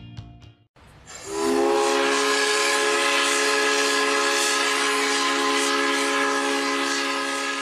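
Guitar music ends, then about a second in a steam whistle starts sounding one long steady chord of several notes over a hiss of steam.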